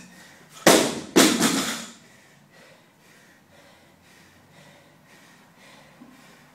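An 80 kg loaded barbell dropped from overhead onto the floor: two heavy crashes about half a second apart as it lands and bounces, rattling away over about a second.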